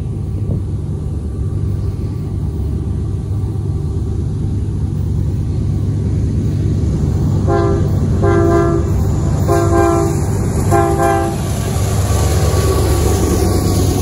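Union Pacific 6507 leading a grain train: the steady low rumble of the locomotive and train, growing louder, with four blasts of the air horn about halfway through, the first one short.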